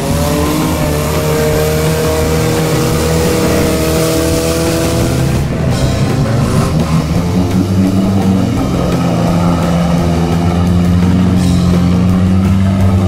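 Off-road 4x4 race vehicle engines revving under load through mud, mixed with rock music.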